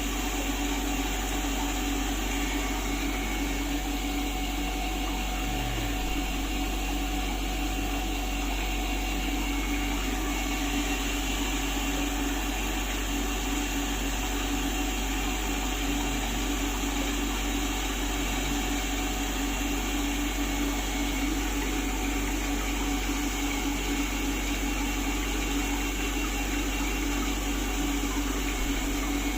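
Centrifugal humidifier running steadily: a constant motor hum over an even hiss, unchanging throughout.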